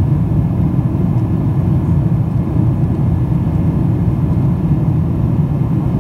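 Steady low rumble inside the cabin of a Boeing 777-300ER in flight, from its GE90-115B turbofan engines and the air rushing past the fuselage, heard from a window seat beside the engine.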